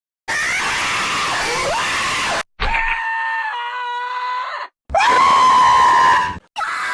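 Four short cartoon scream sound effects played one after another, each starting and cutting off abruptly with a brief silence between. The second scream holds a steady pitch.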